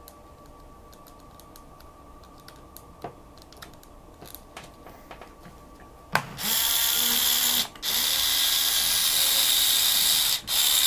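LEGO 9V buggy motor running from a 9V battery box, a loud high-pitched whir that starts suddenly about six seconds in and cuts out twice for a moment before running on. Before it, small clicks of the motor's cable connector being plugged on.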